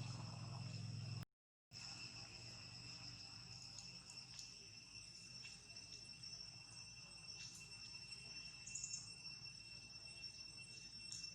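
Faint, steady high-pitched insect trill, probably crickets, held on one pitch throughout, with faint scattered clicks; the sound cuts out completely for a moment about a second in.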